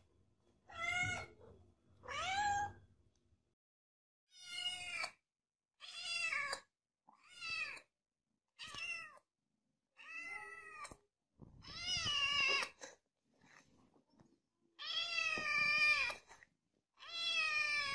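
Kittens meowing: a run of about ten short, high-pitched meows, one every second or two with silent gaps between.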